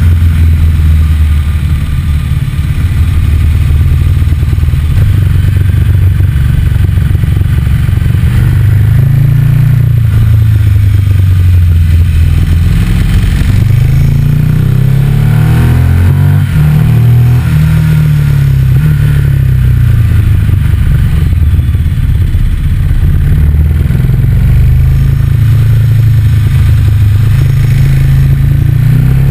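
A motorcycle engine running under way, its pitch rising and falling as it accelerates and eases off through bends, with several gear changes in the middle.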